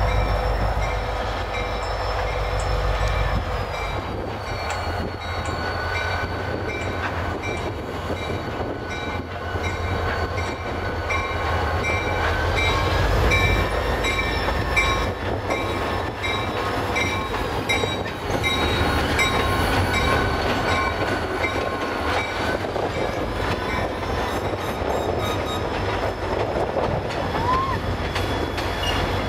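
A slow-moving train of a CSX diesel locomotive and a caboose passing close by: a steady low engine rumble with wheels clacking over the rail. Thin high squeals rise and fall slowly through it.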